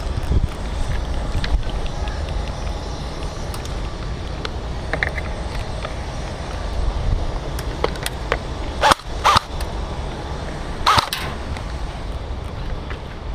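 Airsoft guns firing: a few sharp cracks, two close together about two-thirds through and one more near the end, over a steady low rumble of wind and movement on the microphone.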